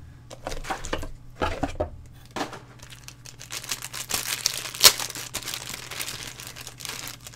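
Clear plastic bag crinkling in the hands as it is handled and pulled open, in a run of irregular crackles with one sharp, loud crackle about five seconds in.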